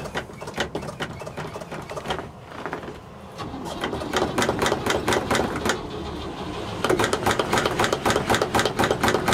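Starter cranking the cold straight-six engine of a 1960 Chevrolet C60 truck: a fast, regular chugging that stops and restarts with short pauses between tries. The engine does not catch.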